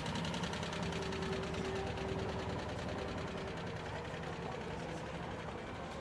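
Citroën 2CV's air-cooled flat-twin engine running with a fast, buzzy pulse as the car drives slowly past, growing fainter as it moves away.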